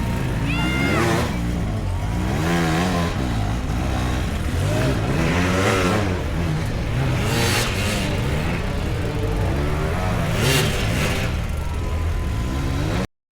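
Dirt bike engines revving hard and falling back, over and over, the pitch rising and dropping with each burst of throttle.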